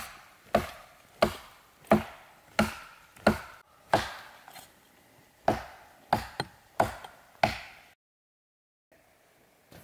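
Axe chopping a birch burl off a birch trunk: about a dozen sharp strikes into the wood at a steady pace of roughly one and a half a second, with a short gap about halfway. The strikes stop about eight seconds in.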